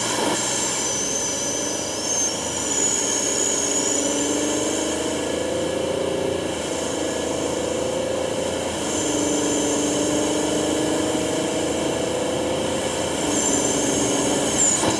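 Toyota Tundra's 3.4-litre twin-turbo V6 pulling under acceleration through a full cat-back exhaust and cold air intake, heard from microphones at an intake filter and at the exhaust tip. The engine note climbs slowly, dips once a little past halfway and climbs again, with a high turbo whistle coming and going.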